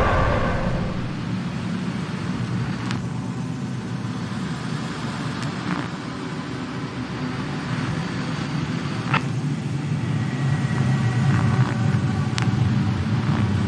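A steady low rumbling drone, with a few faint clicks scattered through it.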